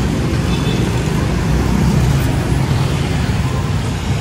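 Road traffic: cars and other motor vehicles running close by in a steady low rumble that swells slightly about two seconds in.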